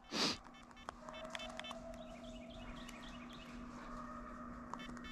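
Faint small birds chirping, with a short descending trill, over a low steady hum. A brief whoosh of noise comes right at the start.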